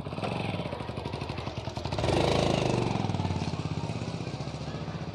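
A motor vehicle's engine running close by, with rapid even firing pulses. It grows louder about two seconds in, then slowly fades.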